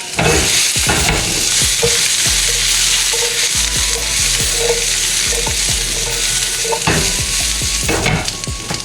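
Potatoes and asparagus sizzling in olive oil in a frying pan while being stirred, with a steady hiss and a utensil scraping and knocking against the pan now and then.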